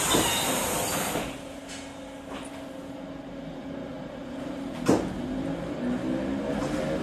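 Inside an RVR ER-31/35 electric multiple unit: a loud hiss of air for about the first second, then a low steady hum. A sharp knock comes about five seconds in, and the traction motors' whine begins to rise in pitch as the train starts to pull.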